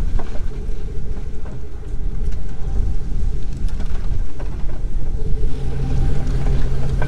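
Jeep Grand Cherokee driving up a muddy trail, heard from a camera mounted on its body: a loud, uneven low rumble of engine and tyres. A steadier engine drone sets in over the last second and a half.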